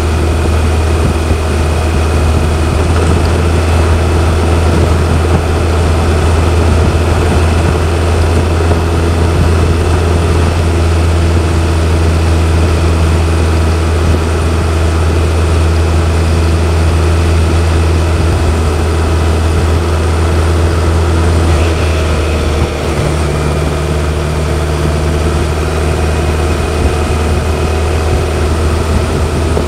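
BMW K1100LT motorcycle's inline-four engine running steadily while riding, with a slight change in the engine note a little over twenty seconds in.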